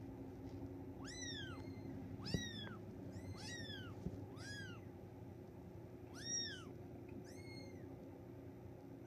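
Three-week-old Bengal kittens mewing: six short, high-pitched cries, each rising then falling in pitch, spaced about a second or so apart.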